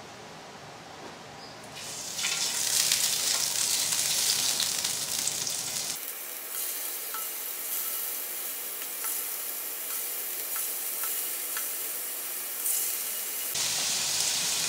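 Raw shrimp sizzling as they are dropped into hot cooking oil in a skillet. The frying hiss starts about two seconds in, is loudest over the next few seconds, then carries on steadily with a few small pops.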